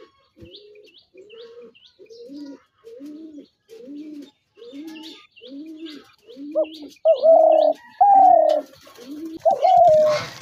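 Spotted doves cooing: a steady run of soft, short low coos, about three every two seconds. About seven seconds in, louder, higher, drawn-out coos join them. Faint high chirps of a small bird sound behind.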